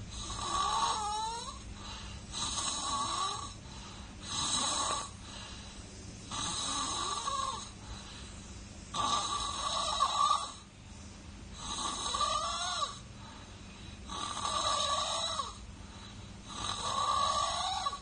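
A baby snoring in sleep, with eight rasping snores about every two seconds. Some of them carry a squeaky, gliding whistle.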